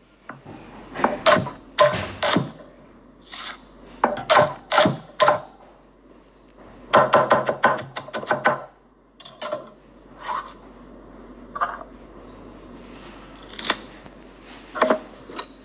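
Large knife chopping and slicing on a wooden chopping block: a string of separate chops and crunches through a baseball, with a quick clatter of small plastic dice under the blade about halfway through, then softer cuts into a pincushion.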